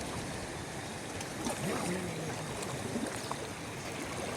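Steady rush of sea water, an even wash of noise with a few faint brief pitched sounds low under it.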